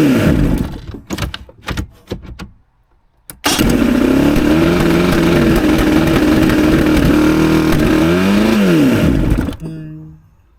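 Mercury 115 outboard engine sputters and dies out over the first couple of seconds, then about a second later starts abruptly and runs for about five seconds at a high, racing idle before swelling in pitch, dropping and stopping. The engine is still revving too high because its throttle butterflies are held open by a loose, sunken choke linkage.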